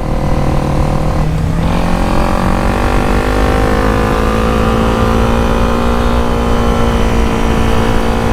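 Honda CRF250L's single-cylinder engine with an aftermarket Danmoto carbon exhaust, running under way with wind rushing over the helmet microphone. It eases off briefly about a second and a half in, then pulls on steadily with its pitch slowly rising.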